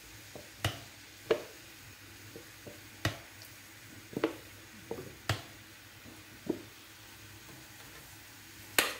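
Spoons knocking and tapping against a non-stick frying pan, about eight sharp irregular knocks, as ketchup is scraped in and stirred into a chilli sauce. A faint sizzle of the sauce bubbling in the pan sits underneath.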